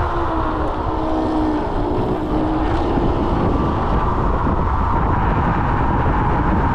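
Wind buffeting the microphone while riding, with a steady motor whine over it whose lower tone slides down in pitch in the first couple of seconds.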